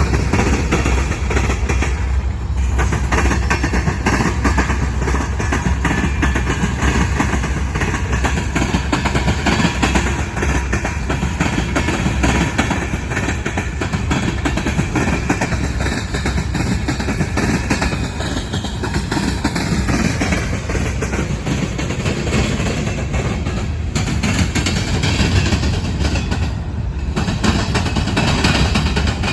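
Freight train rolling past at close range: a steady rumble and rattle of wheels on rail that carries on without a break.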